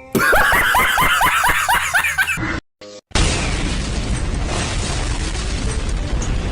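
Edited meme sound effects. First comes a quick run of about ten short rising sounds, about five a second, for two seconds. After a brief gap, a loud, steady blast of noise with a heavy low rumble follows, like an explosion effect.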